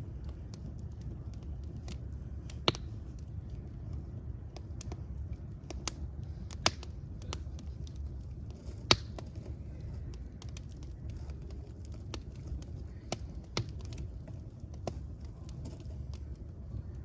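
Fire crackling, with irregular sharp pops over a steady low rumble; three pops stand out louder, a few seconds apart.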